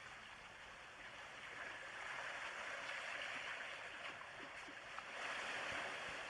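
Sea waves washing on a beach: a soft rushing of water that swells twice.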